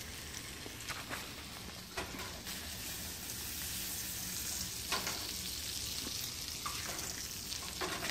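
Fish fillet sizzling in oil in a nonstick frying pan, with a few sharp knocks and scrapes of a fork and spatula against the pan. The sizzle grows louder about two and a half seconds in.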